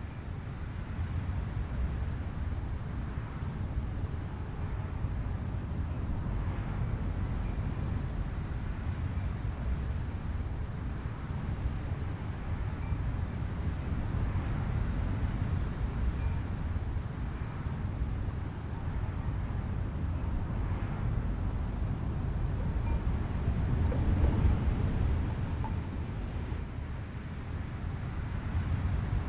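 Outdoor field ambience: a steady low rumble of wind, swelling a little late on, with faint, evenly pulsing insect chirps high above it.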